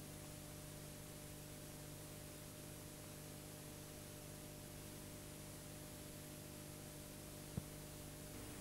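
Faint, steady videotape playback hiss with a low electrical hum, from blank tape after the recording has ended. A single short click near the end.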